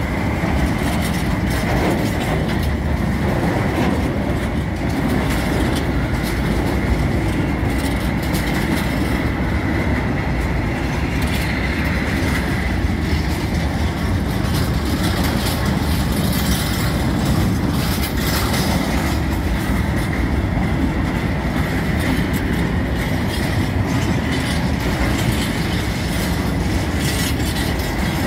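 Long, loaded freight train of covered hopper wagons rolling past: a steady heavy rumble of wheels on rail with clacking over the rail joints and a steady high-pitched ring above it.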